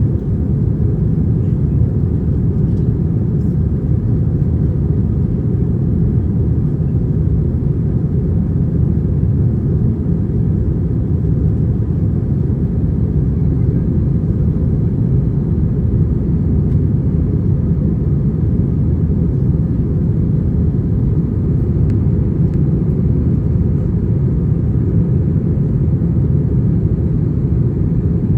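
Steady low rumble of an Airbus A321-231 heard inside the passenger cabin: the drone of its IAE V2500 turbofan engines and the rush of air over the fuselage, even and unchanging.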